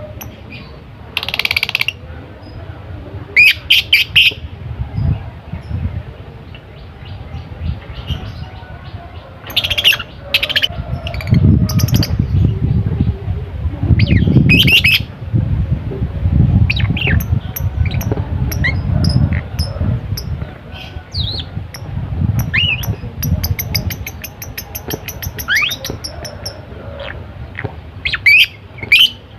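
Lovebird calling in bursts: loud, sharp chirps and squawks come every few seconds, with a fast, even high twitter for a couple of seconds near the end. A low rumbling noise runs under the middle part.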